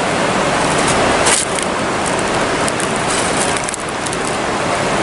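Steady rushing of a fast-flowing river, with brief handling noises about a second in and again near four seconds in.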